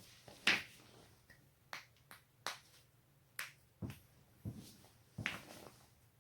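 A series of sharp joint cracks from a neck and back being popped: about eight short pops at irregular spacing, some with a dull thud under them. The loudest is about half a second in.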